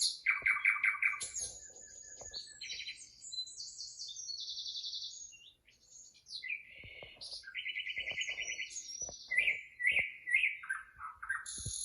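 Small birds chirping and trilling, played from a bird video on a television: a run of short, quick trills and chirps at many different pitches, one after another, with a brief lull a little past the middle.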